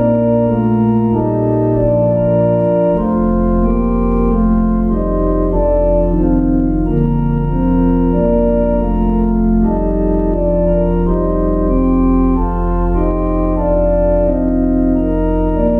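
Organ playing the closing postlude: slow, held chords over a sustained bass note, with the bass moving to a lower note about three seconds in.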